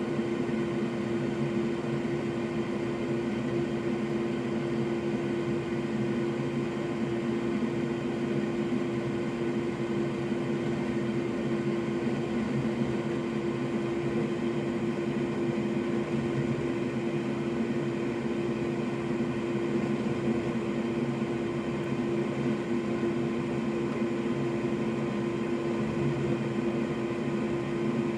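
A small electric blower at a repair bench running steadily, a constant whooshing hum with one strong unchanging tone.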